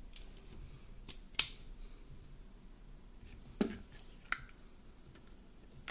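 Glock 21 Gen 4 pistol being reassembled: a few sharp clicks from the parts going together, the loudest about a second and a half in, and a duller knock about three and a half seconds in.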